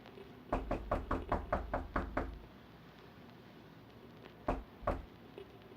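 Knocking on a door: a quick run of about nine knocks, then two more knocks a couple of seconds later.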